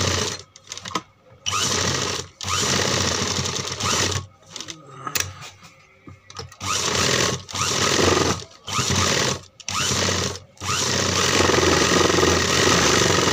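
Sewing machine stitching in repeated short runs of about a second each, stopping and starting between them, with a longer run near the end. It is sewing a fine line close to the edge of a suit neckline.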